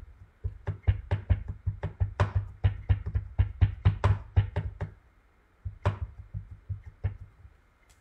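Clear rubber stamp on an acrylic block tapped repeatedly onto a black ink pad to ink it: a quick run of about twenty light knocks over four seconds, then three more spaced-out taps.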